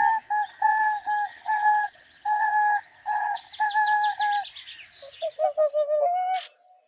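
Swan calling: a run of about a dozen short, level-pitched call notes, roughly two a second, then quicker, lower notes in the last two seconds. Small birds chirp faintly in the background.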